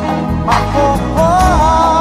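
Soul music playing, with bass, drums and a held melody line, and a drum hit about half a second in.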